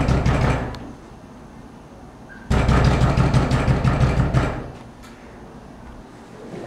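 Rapid knocking on a glass entrance door, in two bouts: one near the start and a longer one from about two and a half seconds in.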